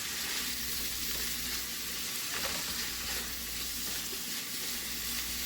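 Hamburger meat frying with onions and peppers in a pan, giving a steady, even sizzle.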